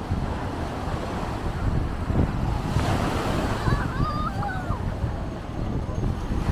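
Ocean surf washing onto the beach, with wind rumbling on the microphone. A brief high warble sounds about halfway through.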